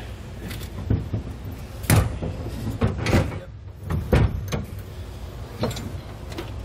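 Heavy steel Demco Autoslide fifth wheel hitch clunking and knocking against the truck bed's puck mounts as it is lowered and shifted into place: about half a dozen separate knocks.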